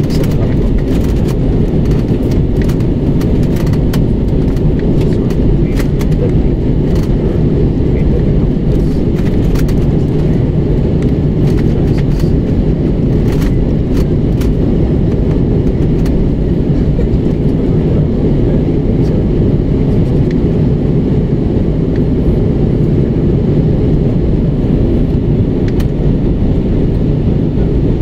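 Steady low roar of a jet airliner's engines and rushing air, heard from inside the passenger cabin, with a scatter of faint clicks in the first half.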